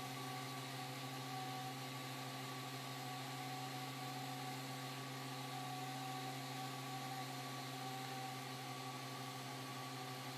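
Steady hum with a few fixed tones from an idle MakerBot Replicator 3D printer, its print just finished.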